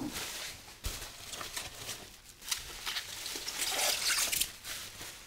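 Plastic bubble wrap crinkling and rustling as hands dig into a packed box and pull out a wrapped bottle, a dense crackle of small clicks that grows louder past the middle.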